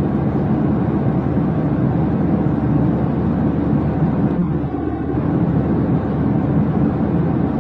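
Steady low rumble of jet airliner engine noise.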